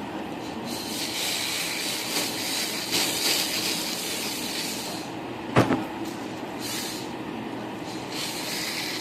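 Electric nail drill grinding acrylic nails: a steady high hiss that runs for several seconds, stops with a sharp click partway through, then starts again in shorter stretches.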